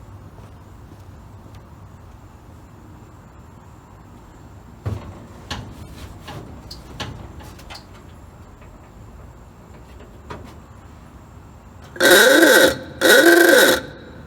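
Newly installed vintage car horn on a 1936 Chevrolet coupe, sounding for the first time in two loud blasts about a second apart. A few faint knocks come before it.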